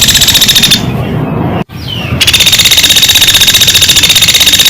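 Lure recording of a platuk beras woodpecker's call: a loud, rapid rattling trill of about a dozen notes a second. It breaks off under a second in and starts again about two seconds in.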